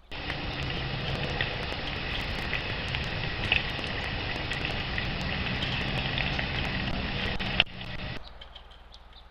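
Steady background noise with a low hum, and short high chirps of small birds at a feeder scattered through it; about three-quarters of the way in it cuts off abruptly, leaving a much quieter hiss.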